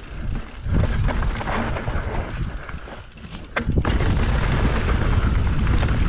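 Helmet-camera audio of a mountain bike descending a dirt trail: steady rumbling noise of tyres on dirt and wind on the camera microphone, with the bike rattling. The noise dips briefly about three seconds in, then a few sharp clicks come and the rumble returns.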